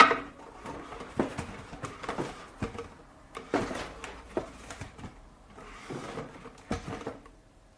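A chair being moved across a floor: a series of separate scrapes and knocks.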